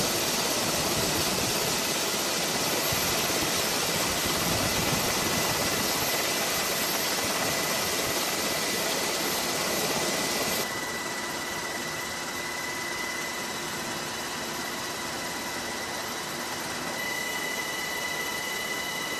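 MH-60S Seahawk helicopter's turbine engines running, a steady high whine over constant rushing engine and rotor noise. About ten seconds in the sound changes abruptly and gets somewhat quieter, with the whine still there and a few more steady tones joining it.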